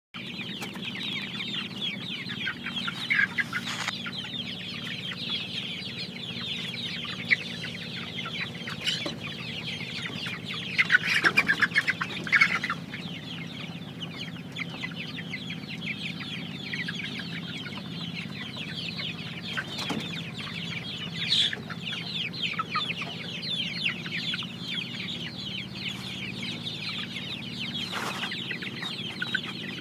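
A flock of young Jawa super (joper) crossbred chickens calling continuously, many high-pitched overlapping peeps and clucks, with a louder burst of calls about eleven to twelve seconds in and a few sharp knocks.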